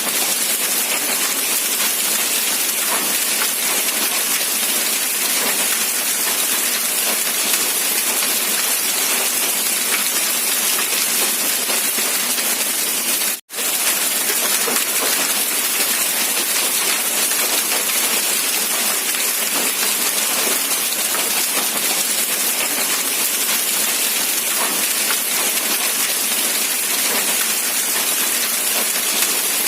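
Steady rain falling, an even hiss of many drops without let-up. It cuts out for an instant about halfway through, then carries on unchanged.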